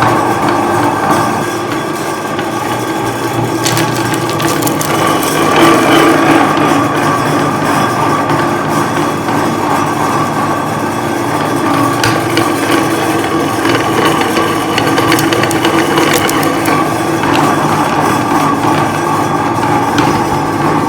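Electric meat grinder running steadily while crunching through chocolate umbrellas, with scattered sharp cracks and clicks over a constant motor hum.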